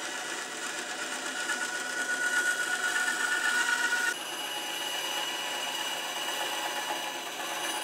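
Small benchtop bandsaw running and cutting through a block of UHMW plastic, a steady motor and blade whine that grows louder as the cut goes on. About four seconds in the sound changes abruptly to a quieter, higher-pitched whine.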